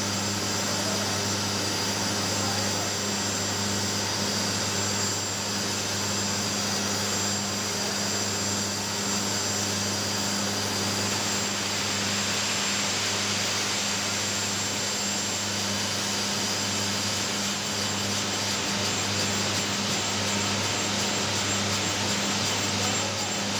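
15 MW condensing steam turbine running: a steady low hum with a continuous steam hiss over it, heard at the turbine's HP control-valve chest.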